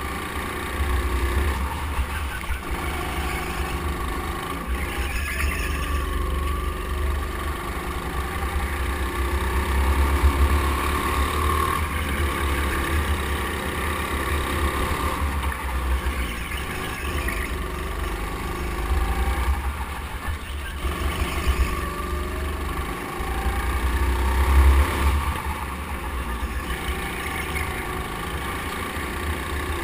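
Go-kart's motor running on the move as it laps a track, its note swelling and easing with the throttle over a heavy, continuous low rumble of chassis vibration and wind on the onboard microphone.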